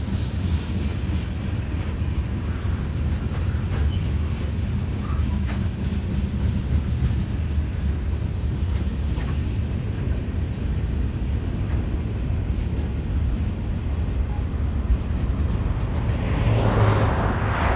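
Freight train rolling past: a steady low rumble of railcars on the track with faint clicks, swelling louder near the end.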